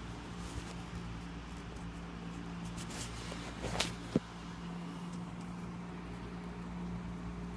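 Steady low electrical hum of room tone, with a brief rustle and one sharp click about four seconds in.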